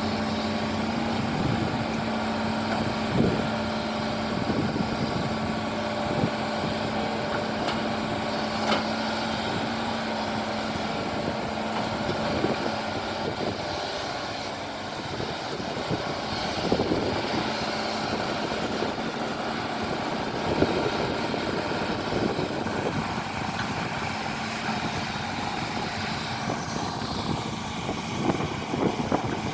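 Excavator engine running steadily while the machine works, with a few scattered clanks and knocks.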